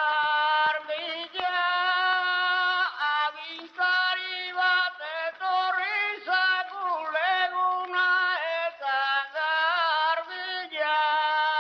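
A bertsolari's solo a cappella singing of a Basque bertso, from the 1918 recording that is the earliest audio recording of a bertsolari. A male voice holds long, wavering notes, with the narrow, dull sound of an old recording.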